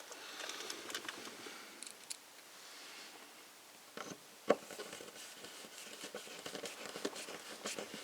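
Hands fitting a replacement latch and its small parts: faint scattered clicks and light rustling, with one sharper knock about four and a half seconds in.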